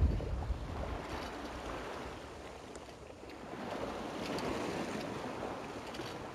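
Sea water rushing and splashing along the hull of a Contessa 26 sailboat under sail, with wind buffeting the microphone at the start. The wash swells again about three and a half seconds in.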